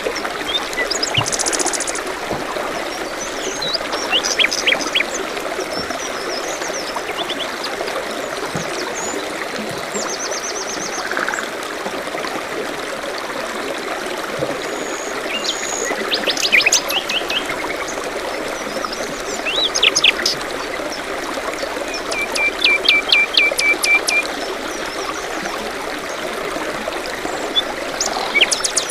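Forest stream running steadily, with several small songbirds chirping and trilling over it; one bird gives a rapid trill of repeated notes about two-thirds of the way through.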